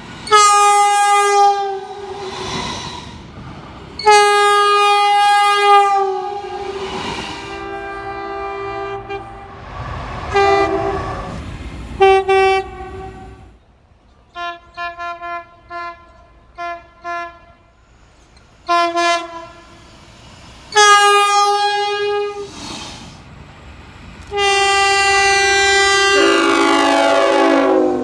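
Locomotive air horns sounding a series of blasts: several long blasts, then a run of quick short toots, then more long blasts. Near the end a long blast falls in pitch.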